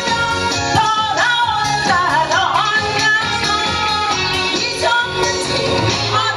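Woman singing a Korean song live into a microphone over instrumental accompaniment with a steady beat, holding a note with vibrato about two seconds in.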